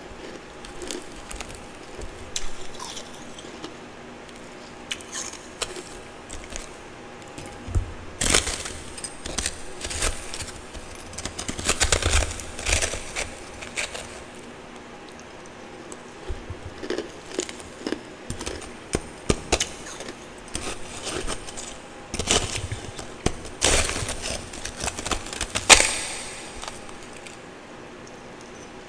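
Twice-refrozen powdery ice crunching as it is scooped from a plastic tub with a metal spoon and chewed, in irregular clusters of crisp crunches with pauses between, loudest near the end.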